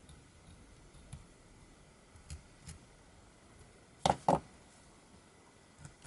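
Handwork with a small knife and pineapple on a plastic cutting board: a few faint clicks, then two sharp knocks in quick succession about four seconds in, hard objects set down or struck on the board.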